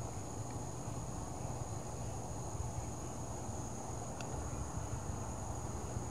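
Crickets chirring in a steady, unbroken high drone, over a steady low rumble.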